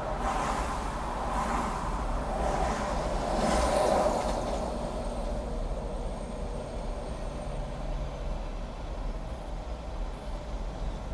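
Road traffic: four vehicles swishing past in quick succession over the first four seconds or so, then a steadier low rumble of traffic.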